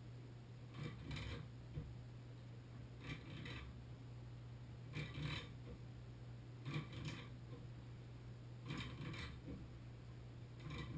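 Short metallic strokes from a wrench turning a cartridge extraction tool on a stuck Moen Positemp shower valve cartridge: six strokes, about one every two seconds, over a steady low hum.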